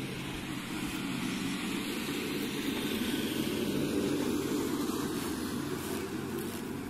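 8 hp single-cylinder diesel pumping-set engine running steadily, driving an irrigation water pump, a little louder about three to four seconds in.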